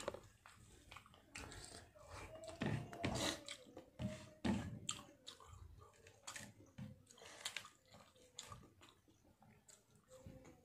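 A person eating rice and fish with the fingers: irregular chewing and wet mouth smacks, with soft clicks as the fingers mix rice on the plate.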